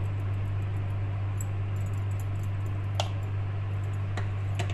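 A steady low electrical hum runs throughout. A few sharp light taps come about three seconds in and again near the end, from the plastic measuring cup knocking as cream is emptied from it onto raw chicken pieces in a bowl.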